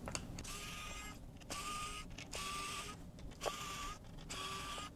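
Electric precision screwdriver whirring in several short runs, each a steady whine lasting under a second, with small clicks between, as it backs out the tiny screws holding the lower loudspeaker plate of a smartphone.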